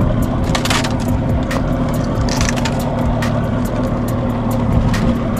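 A fishing hand-line being hauled in hand over hand over the side of a small wooden boat: short sharp rubbing clicks about once a second over a steady low motor hum.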